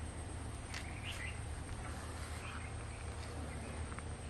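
Outdoor ambience: a few short bird chirps over a steady low rumble and a constant high thin whine.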